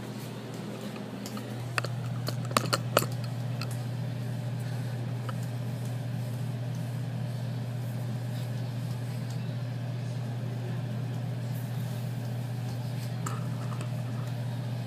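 A steady low machine hum, with a few sharp knocks about two to three seconds in.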